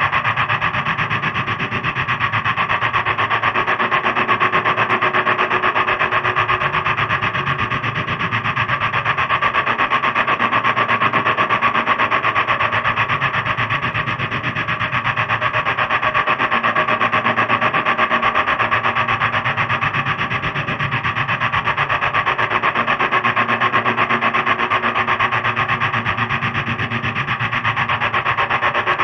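Small multirotor drone's propellers buzzing steadily, with a fast flutter and a held pitch and only slight swells in level.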